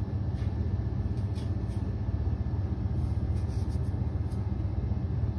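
Steady low rumble of background noise, with a few faint soft ticks now and then.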